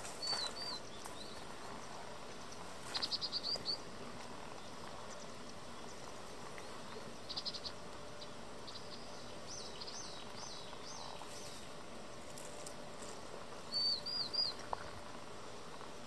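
Bird calling: groups of short, high chirps and quick trills every few seconds over a steady background hiss.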